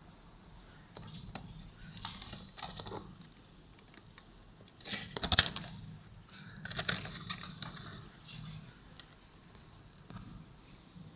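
Hand work on a TV circuit board during a capacitor replacement: scraping and crackling handling sounds with a few sharp clicks. The loudest burst comes about five seconds in and another about seven seconds in, over a low steady hum.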